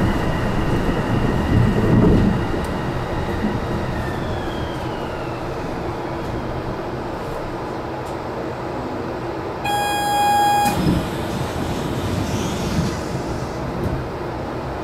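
Kobe Port Liner rubber-tyred people-mover car running along its guideway, heard from inside at the front: a steady rolling rumble with a high electric whine that glides down in pitch about four seconds in. About ten seconds in a horn toots once for about a second.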